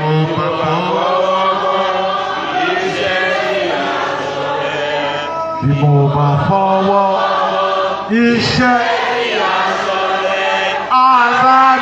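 Church congregation chanting together in long, held notes.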